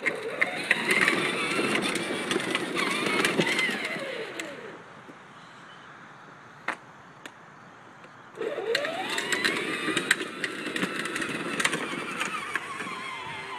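Battery-powered ride-on toy car driving on a paved driveway: its electric motor whines and its hard plastic wheels rattle and click over the pavement. It slows and stops about four seconds in, then sets off again with a rising whine about eight seconds in.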